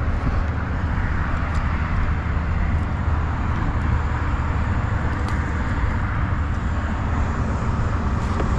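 Steady wind rumble on the camera microphone, with a few faint clicks.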